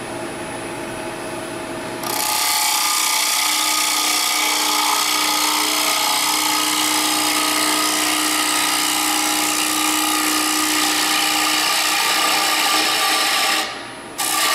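Wood lathe spinning a bowl while a carbide hollowing tool cuts into its inside, a loud steady cutting noise over the lathe's hum. The cutting starts about two seconds in, breaks off briefly near the end and starts again.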